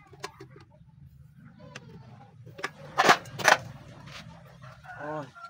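Hand tools working on a small single-cylinder engine: light clicks of a ratchet wrench on a crankcase bolt, then two sharp knocks about half a second apart, over a low steady hum.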